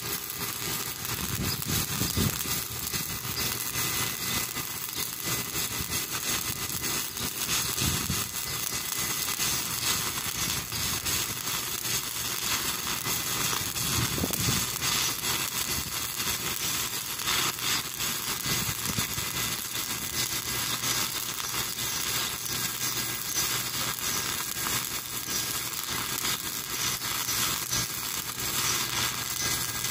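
Stick welding arc crackling and hissing steadily as the electrode burns along the weld.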